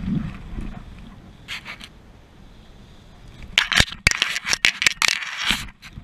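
Paraglider landing on grass: a low thud at the start, then from about three and a half seconds in a run of loud, irregular scraping and rustling bursts as the pilot's gear brushes and drags over the ground.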